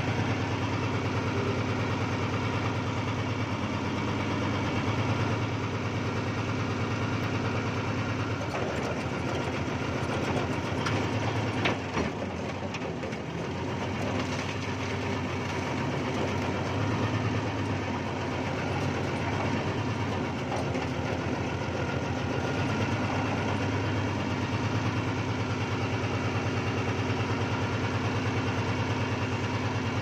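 Old backhoe's diesel engine running steadily, heard from the cab. About nine seconds in the engine note shifts, with a couple of sharp knocks near twelve seconds, then it settles back to a steady idle.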